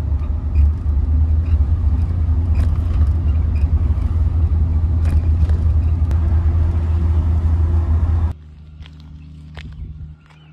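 Steady low rumble of a vehicle driving, heard from inside, which cuts off suddenly about eight seconds in. After it, a much quieter outdoor background with a few faint chirps.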